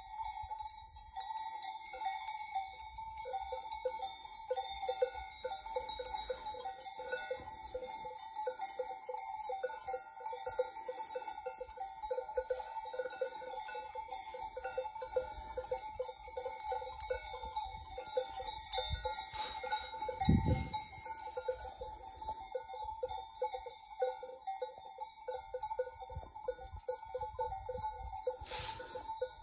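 Many bells worn by a grazing sheep flock clanking irregularly and overlapping, several different bell pitches ringing at once. A single low thump about two-thirds of the way through.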